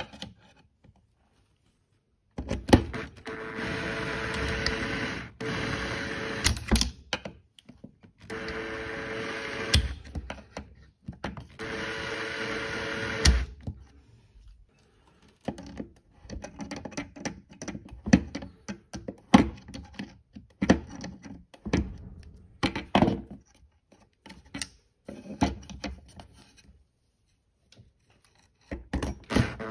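Cordless drill/driver motor running in four steady whirring runs of two to three seconds each, working at backing out a screw. After these come a string of clicks, knocks and scrapes of metal hand tools against the screw and the wooden board.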